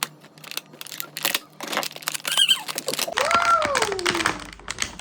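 Crackling clicks and rustles of a toy box and its plastic packaging being handled and opened. About three seconds in comes a child's long, drawn-out exclamation that rises and then falls in pitch.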